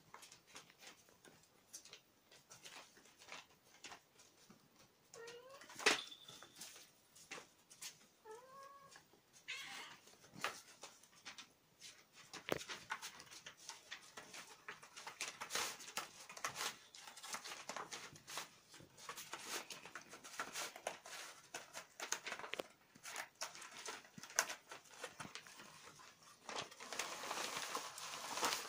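Kittens meow a few short times in the first ten seconds. Throughout there is light rustling and scratching from their paws as they scamper over a sheet and a cardboard scratcher, busier in the second half.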